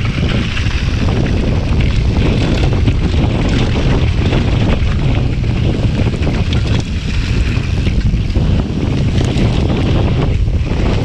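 Wind buffeting a helmet- or bike-mounted GoPro's microphone while riding a mountain bike at speed, a loud steady rumble, with rattling clicks from the bike jolting over the dirt trail.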